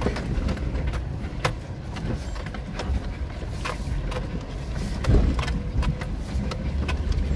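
Inside a Suzuki Jimny's cabin: the engine runs low and steady while the 4WD rolls down a rocky track, with scattered knocks and rattles from the tyres and body over the stones. A heavier thump comes about five seconds in.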